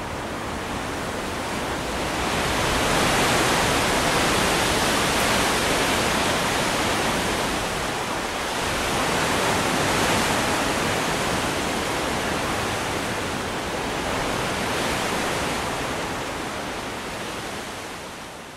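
Wind rushing through leafy trees, swelling in two gusts and fading out near the end.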